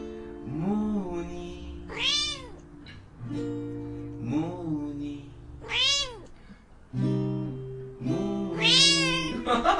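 A domestic cat meowing repeatedly, about six calls that each rise and fall in pitch, in time with acoustic guitar chords ringing underneath. The cat is joining in with the guitar song.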